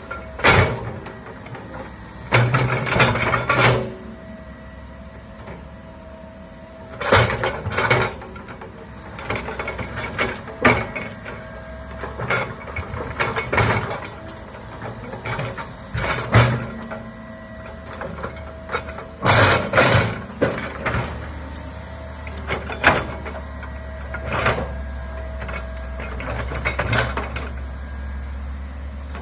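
Komatsu excavator working: its diesel engine runs steadily while repeated loud clanks and crashes break in every few seconds, some single and some in rattling clusters lasting about a second.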